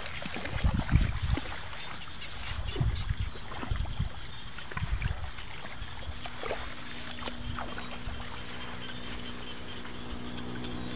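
Handling noise: irregular rustles and low thumps as a person moves through grass and works a fishing line, over a steady high-pitched whine. A low motor hum comes in about six seconds in and slowly builds.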